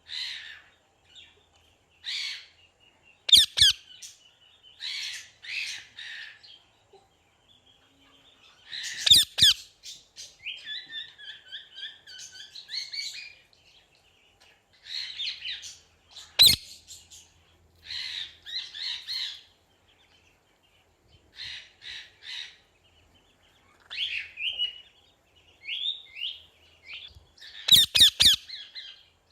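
A parrot calling: irregular chirps, squawks and short gliding whistles, with four much louder, sharp squawks spread through the stretch.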